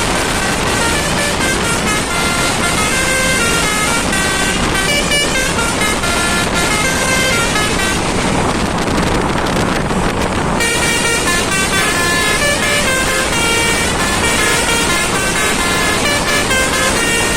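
Eka Persada bus's basuri telolet horn playing a tune of held notes stepping up and down, over steady traffic noise. About eight seconds in the tune breaks off for two to three seconds, leaving only a rush of road noise, then starts again.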